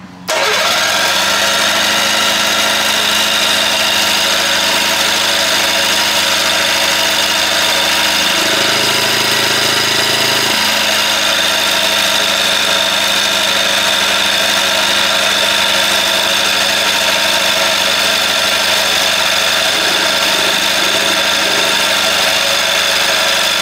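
1990s Hirth 2703 two-stroke ultralight airplane engine starting and running steadily with its propeller spinning, then dying away at the very end. It is running on starting fluid alone and is not getting fuel, because mud daubers have clogged the fuel pump's pulse line.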